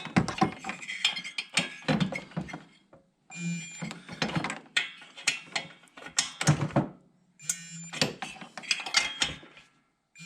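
Snap-on digital torque wrench on the cylinder stud nuts: its ratchet clicks in runs, and a few times it gives a short beep-and-buzz that signals the set torque of 16 foot-pounds has been reached.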